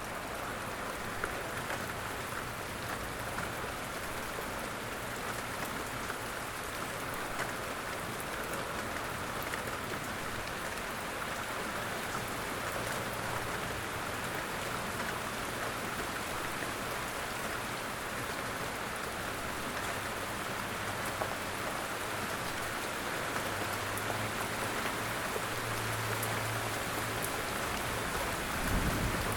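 Light rain falling steadily in woodland, an even hiss of drops. A faint low hum comes and goes beneath it, and there is a brief low thump near the end.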